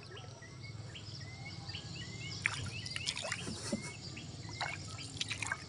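Small birds chirping over and over in short high notes, over a low steady rumble and a few sharp knocks.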